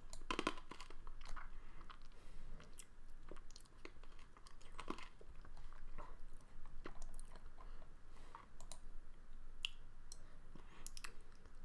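Irregular faint clicks and small crackling noises close to the microphone.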